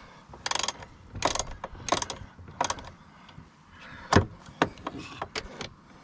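Hand ratchet wrench clicking in short bursts, stroke after stroke, as a door hinge bolt is run in by hand; the bolt turns easily. The sharpest click comes about four seconds in.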